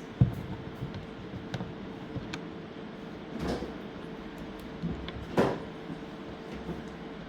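Scattered clicks and knocks from a PS5 DualSense controller being handled and worked on, over a steady faint hum. A sharp knock just after the start is the loudest, with another firm knock a little past the midpoint.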